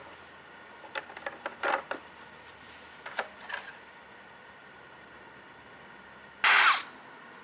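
A few light knocks and clatters of handling, then one short, loud rasp near the end, typical of the recoil starter cord being pulled on a Briggs and Stratton 190cc push mower engine; the engine does not catch.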